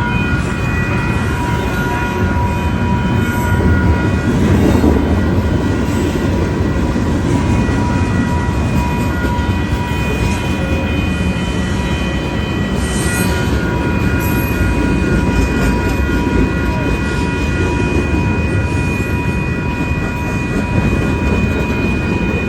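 A train passing through a grade crossing, its cars and wheels rumbling steadily, while the crossing's electronic bell rings with a set of steady tones over it.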